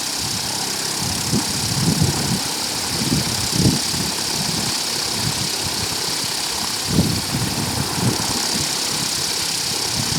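Homemade blower, a washing-machine motor spinning a 35-inch propeller on a 36-volt battery, running at steady speed with a loud rush of air, producing wind of about 10-12 m/s. Irregular low rumbles of wind buffeting the microphone come and go.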